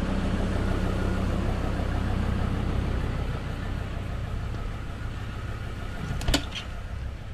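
A steady low motor hum runs throughout. About six seconds in come two sharp metallic clicks as a key turns in the caravan's door lock.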